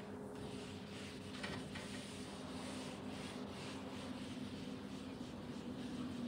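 Marker pen rubbing and scratching on a whiteboard in faint strokes while drawing, over a low steady hum.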